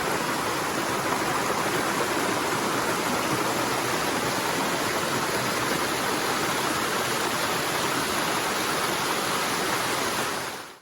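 Waterfall water rushing steadily, fading out quickly just before the end.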